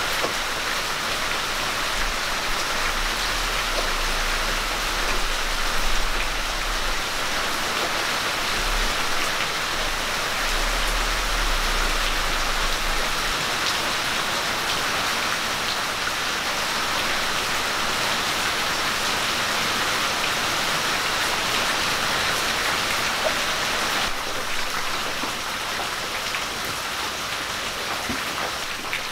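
Onion-tomato masala gravy sizzling and simmering in a clay pan over a wood fire, a steady hiss that eases slightly near the end.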